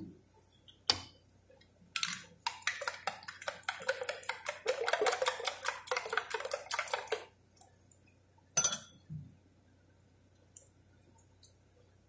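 Eggs being beaten by hand with a utensil in a bowl: a quick run of clicking strokes, about six a second, lasting some five seconds. A single knock comes about a second in and another near the end.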